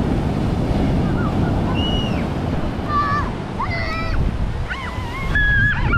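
Surf washing on a beach, with wind buffeting the microphone. Short high-pitched voices call out over it from about halfway through.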